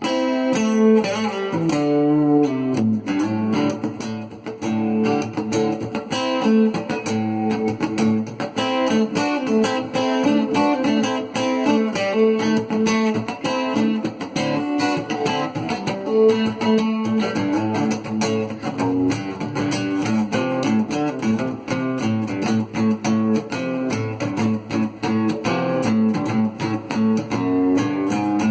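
Cort GA5F-MD acoustic-electric guitar played through its Fishman pickup with a chorus effect on, a steady stream of plucked and strummed notes and chords.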